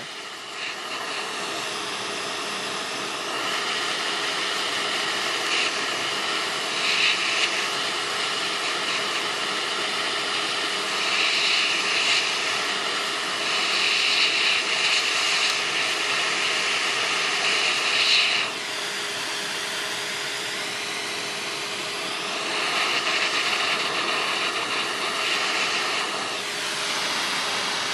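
Hot air rework station blowing hot air at high flow (420 °C, 80% air) onto a phone motherboard to desolder the metal shield over the CPU and memory: a steady airy hiss with a faint whine underneath. The sound swells in places, shifts briefly about two-thirds through, and fades near the end.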